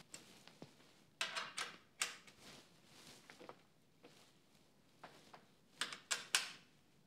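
Faint handling sounds of tools and parts on a dirt bike's handlebar: a few short clicks and scrapes as a hex key works the handguard mount bolts, with quiet gaps between.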